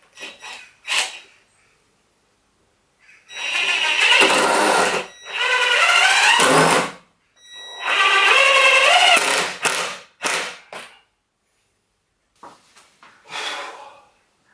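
Cordless drill-driver driving long screws into a softwood timber frame: three runs of about two seconds each, the motor's pitch wavering as it loads up. Short knocks and clatter of handling the drill and wood come before and after.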